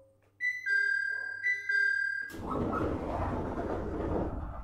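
Two-tone door chime inside a JR East 701 series train, a high tone then a lower one, sounding twice. From about halfway the sliding doors move with a loud, steady rush of air and rumble.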